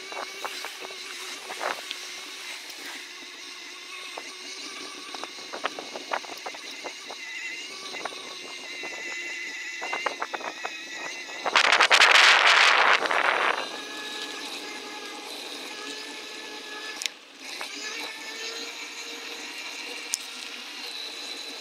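Bicycle rolling over a trail, with a steady rattle and scattered sharp clicks; a little past halfway, a loud harsh rushing noise lasts about two seconds.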